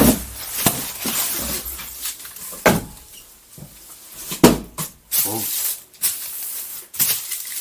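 Toy packaging being handled and opened by hand: rustling, with about five sharp knocks and clacks spread through.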